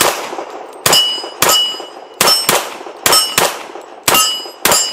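Bul Armory Radical 2011 competition pistol in .40 caliber firing about nine rapid shots, mostly in pairs, each followed by the ringing clang of hit steel targets.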